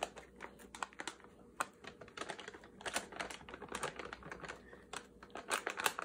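Ballpoint pen writing on a brown paper bag: a run of short, irregular scratches and taps, with the stiff paper crinkling under gloved hands.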